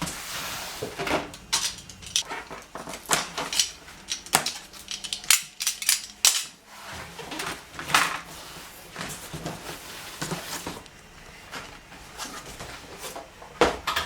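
Handling of packaging and hard plastic parts: irregular clicks, taps and clatter mixed with rustling.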